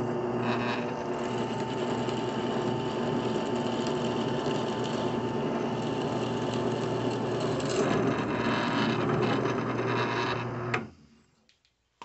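Benchtop drill press running steadily with a constant motor hum, its bit boring into a turned cedar hummingbird house. The motor cuts off and winds down near the end.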